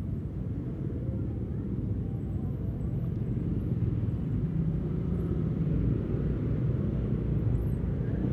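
Low, steady rumble of a Honda PCX 160 scooter and the motorbikes and cars around it in slow, dense street traffic, picked up on the rider's camera. The rumble grows a little louder in the second half.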